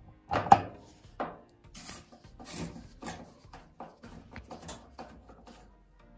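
Screwdriver and panel handling on a Bosch dryer's casing as Torx screws are worked: irregular knocks, clicks and scraping, the sharpest knock about half a second in.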